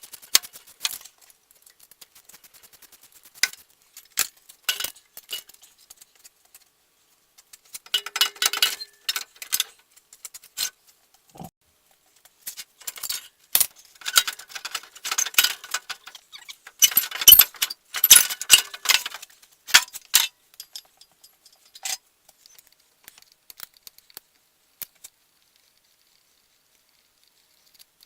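Metal hand tools and parts clinking and rattling during mechanical work: scattered sharp clicks, with busy bouts of rattling about 8 seconds in and again from about 13 to 20 seconds in.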